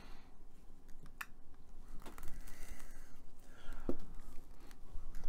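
Quiet handling sounds of a chocolate bar and its wrapper being held up and moved about: faint rustling and a few small clicks, one about a second in and one near four seconds in.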